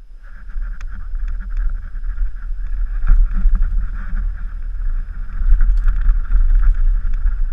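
Downhill mountain bike descending a rough dirt trail, heard from a helmet-mounted camera: steady wind rush and low rumble on the microphone, with rattling and knocks from the bike over the rough ground, the strongest knock about three seconds in.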